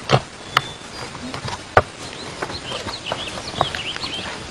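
Birds chirping in short, quick calls through the second half, with clucking, over a few sharp knocks, the loudest in the first two seconds.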